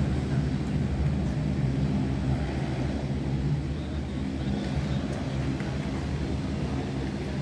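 Twin turboprop engines of a CN-235-220 military transport (General Electric CT7-9C) running: a steady, layered low drone.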